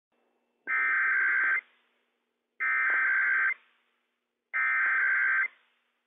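NOAA Weather Radio Emergency Alert System SAME header: three identical bursts of digital data tones, each just under a second long and about two seconds apart, encoding a Required Weekly Test from transmitter WWF56.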